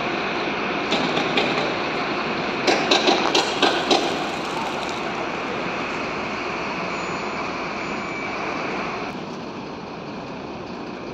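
Steady city traffic noise, an even wash of engine and road sound, with a quick run of about six sharp claps about three seconds in.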